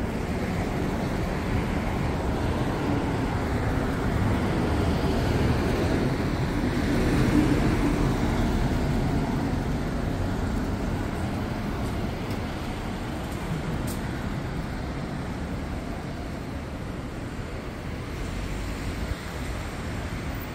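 Road traffic on a city street: a steady rumble of vehicles that swells as one passes close, loudest about seven seconds in, then slowly fades.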